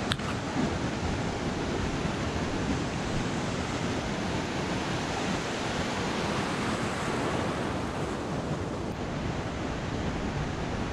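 Ocean surf breaking and washing in over a shallow sandy beach, a steady rush, with one short click right at the start.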